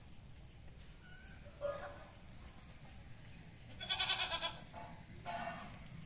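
Three calls from a farm animal: a short one near the start, a louder, longer one about four seconds in, and a shorter one after it.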